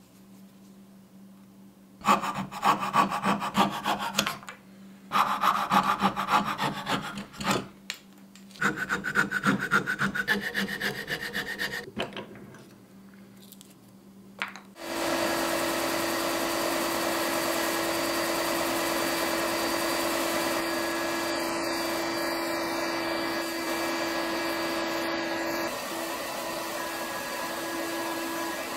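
A hand coping saw cuts through a wooden lure blank in three bouts of quick, rhythmic strokes. From about halfway, a bench belt sander runs steadily with an even hum as the blank is sanded against the belt.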